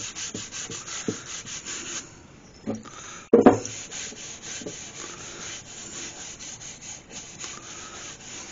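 A rag rubbing finishing oil into a block of oak in quick back-and-forth strokes, about four a second at first, then fainter and steadier. A single knock about three seconds in is the loudest sound.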